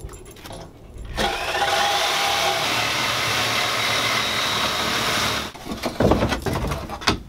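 Corded reciprocating saw running steadily for about four seconds as it cuts through an old radiator, then a few thumps as the cut pieces go into a plastic wheelie bin.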